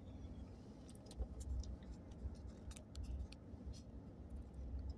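Low road and engine rumble heard inside a moving vehicle's cabin, with scattered light clicks and ticks over it.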